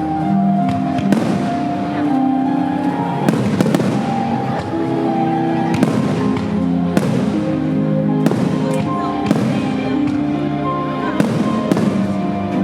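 Aerial fireworks shells bursting a dozen or so times, some in quick runs of two or three, over music with long held notes.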